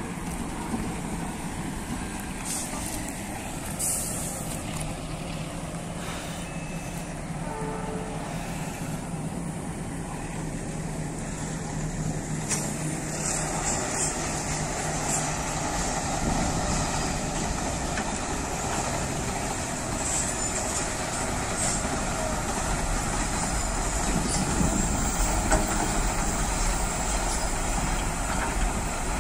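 Heavy diesel engine running steadily with a low hum, giving way in the second half to a broader, slightly louder rumble of passing vehicles.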